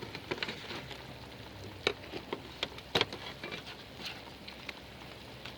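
Chicken sizzling on a grill, a steady hiss broken by scattered sharp pops and clicks.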